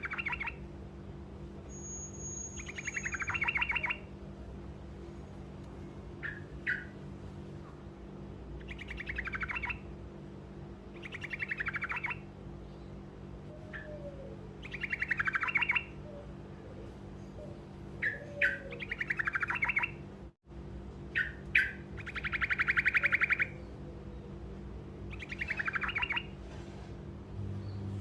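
Yellow-vented bulbul (trucukan) singing short rolling trills, each about a second long and repeated every two to three seconds, over a steady low hum.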